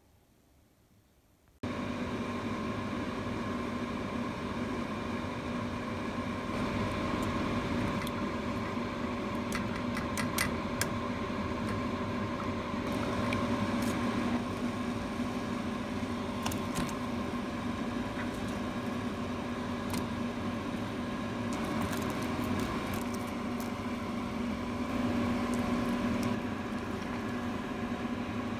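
A steady mechanical hum of a kitchen appliance starts about a second and a half in, with scattered light clinks of a metal mesh skimmer against the pot as broth is skimmed.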